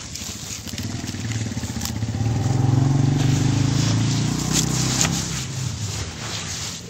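A motor vehicle's engine passing by, swelling about a second in, loudest in the middle and fading near the end. Over it, hands crumbling dry, gritty charcoal in a plastic tub give scattered crunches.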